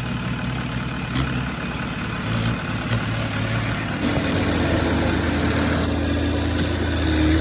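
Heavy machinery diesel engine running; about four seconds in the engine note becomes louder and steadier.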